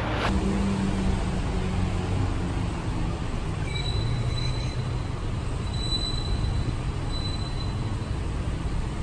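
Steady outdoor street ambience: a low rumble under an even hiss, with faint thin high-pitched tones coming and going from about four seconds in.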